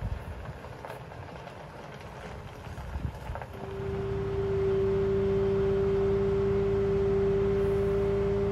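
Flatbed lorry's engine running with a few clicks, then about three and a half seconds in a loud, steady hum with one clear tone sets in and holds.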